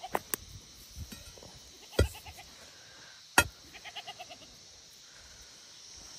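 A castrated male goat bleating in short, quavering calls: the end of one call at the start, then two more. The goat is calling because it has been kept back while the other goats were let out. Several sharp knocks cut in, the loudest about two and three and a half seconds in.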